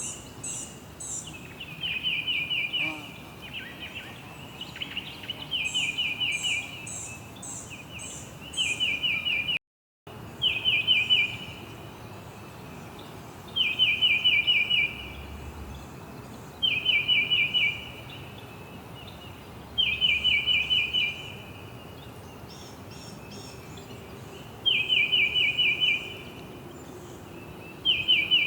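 Songbirds singing: one bird repeats a short, rapid, buzzy trill about every three seconds, while thin, high pulsed notes from another bird sound in the first third. A steady background hiss runs underneath, and the sound cuts out completely for a split second near the middle.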